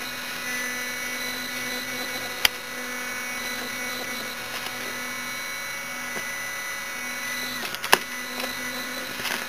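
Small brushless floppy-drive spindle motor spinning at very high speed, a steady whine made of several high tones. Two sharp clicks break in, about two and a half seconds in and near the end.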